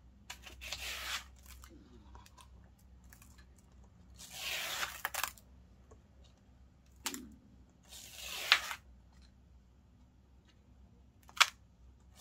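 Glossy photobook pages that are stuck together being peeled apart, making a tearing, crackling noise three times about four seconds apart, with sharp snaps as the pages come free.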